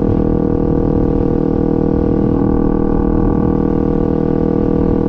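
2014 Kawasaki Ninja 300's parallel-twin engine running at a steady speed while riding, its pitch holding nearly level.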